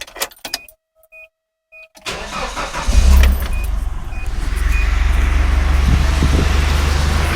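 A few short electronic beeps, then a Nissan Hardbody pickup's engine is cranked by the starter about two seconds in, catches about a second later and settles into a steady idle. It runs without the timing chain rattle it had before the repair.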